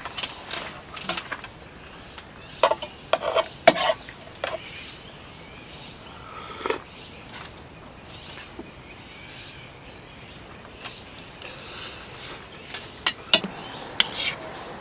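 Dishes and utensils clinking and clattering as they are handled, in short clusters of knocks with quiet gaps between.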